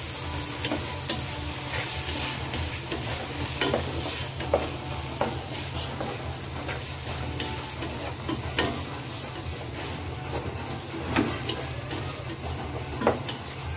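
Chopped tomatoes, onions and coconut pieces sizzling in a nonstick pot while a wooden spatula stirs them. The spatula scrapes and knocks against the pot every second or so, with the loudest knocks about four and a half, eleven and thirteen seconds in.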